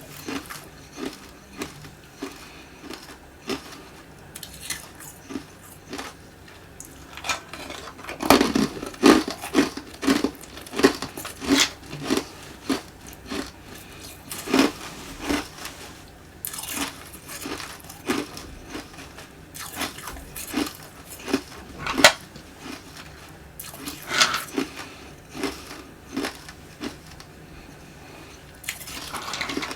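Hard tube ice being bitten and chewed: repeated sharp, extra-crunchy cracks, thickest and loudest in a run of bites about eight seconds in, with softer chewing crunches between.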